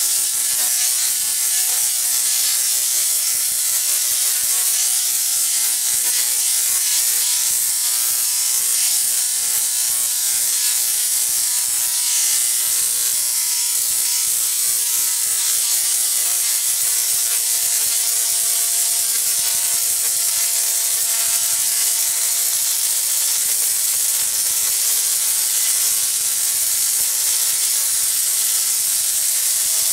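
Rotary spark gap Tesla coil running continuously, with sparks streaming off its stacked toroids: a loud, steady buzzing crackle with an even pitch that holds throughout.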